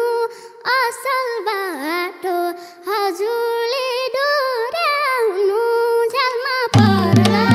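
A young girl sings a Nepali folk melody alone and unaccompanied, her voice sliding and turning ornamentally between notes. Near the end the band comes in with hand drums and instruments.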